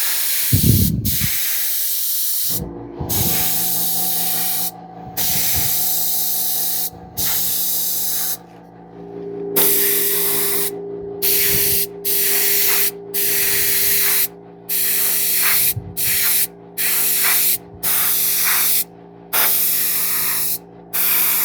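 Airbrush spraying paint in repeated bursts as the trigger is pressed and released. Each burst is a loud hiss lasting one to two seconds, and the bursts grow shorter and come quicker after the first half. A steady low hum runs underneath.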